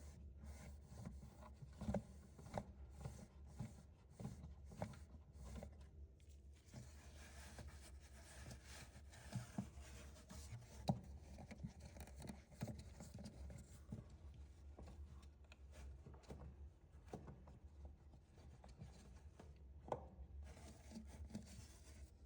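Faint handling noises: rubbing and scraping with scattered light clicks and taps, over a low steady hum.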